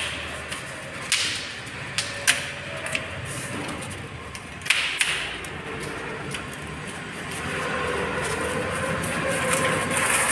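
Cardboard cartons of large floor tiles being torn open and pulled apart by hand: rustling and ripping of the packaging, with sharp knocks and taps as box edges and tiles are handled. A faint steady hum comes in during the second half.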